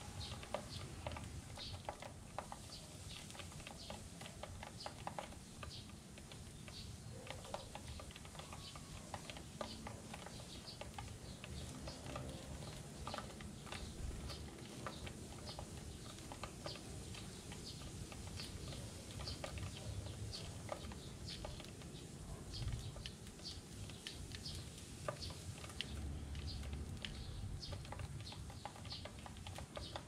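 Eurasian tree sparrows pecking seed off a black plastic tray: many quick, irregular taps of beaks on plastic, several a second.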